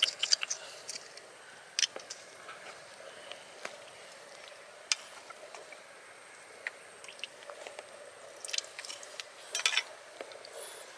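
Scattered sharp clicks and small wet squelching scrapes of shells and mud being handled, with a denser run of clicks near the end.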